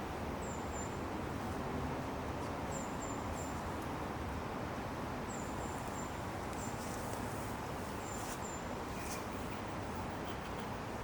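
Small songbird giving very high, thin call notes in short runs of two or three, repeating every couple of seconds over a steady background rumble.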